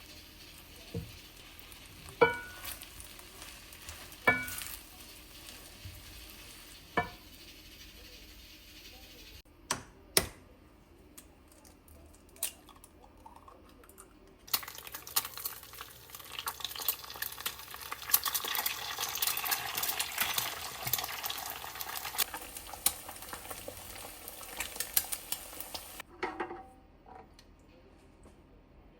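Kitchen utensils clink sharply against dishes a few times with a brief ring. About halfway through, food starts sizzling and crackling in a frying pan, keeps going for about ten seconds, then cuts off.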